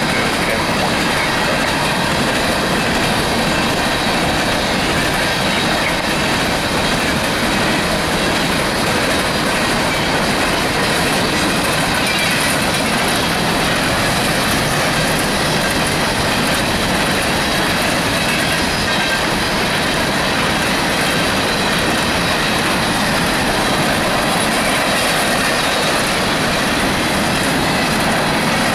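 Empty steel coal hopper cars of a freight train rolling past, a steady rush of wheels on rail.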